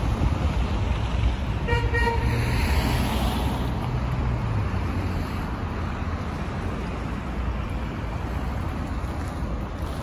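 Steady low rumble of street traffic, with a short double toot of a car horn about two seconds in.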